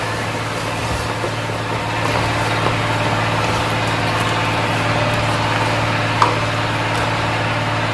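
A steady low mechanical hum with an even hiss over it, and one light click about six seconds in.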